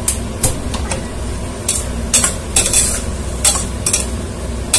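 A perforated steel ladle scraping and stirring raw basmati rice with cumin seeds in a stainless steel pressure cooker, about eight scrapes at uneven intervals over a steady sizzle: the rice is being sautéed in the fat before the water goes in.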